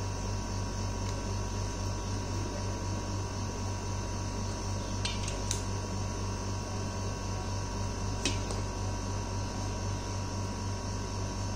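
Steady low electrical hum and hiss, with a few faint light clicks about five seconds in and again about eight seconds in as ice cream sticks and craft scraps are handled.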